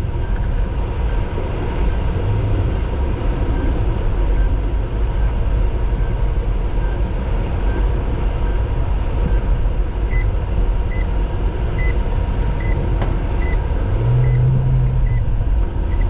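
A car driving through a snowstorm, heard from inside the cabin: a steady low rumble of engine, tyres and wind. A soft electronic beep from the car repeats about once a second, and about ten seconds in it changes to a lower, clearer beep repeating a little faster.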